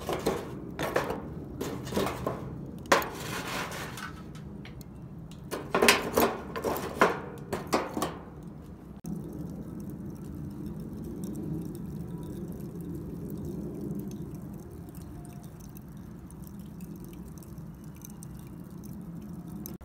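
Lumps of charcoal knocking and clinking against each other and against metal tongs as they are piled up, in irregular clusters of sharp knocks. About nine seconds in this gives way to a steady low hum.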